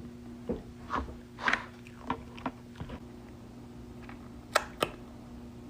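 A scatter of about eight small sharp clicks and taps, a pair of them close together near the end, over a steady low electrical hum.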